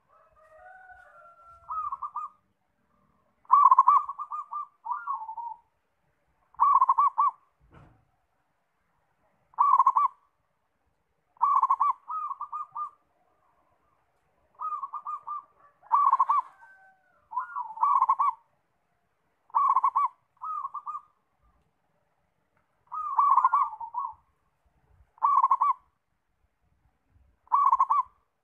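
Zebra dove (perkutut) cooing: about a dozen short phrases of rapid, rolling coos, each a second or two long, with pauses between them.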